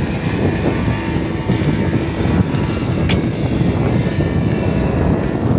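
Engine of a small passenger boat running close by: a steady low rumble.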